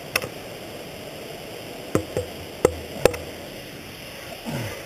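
Ice tool picks and crampon points tapping and scraping on rock while dry tooling: about five sharp metallic knocks over a steady hiss.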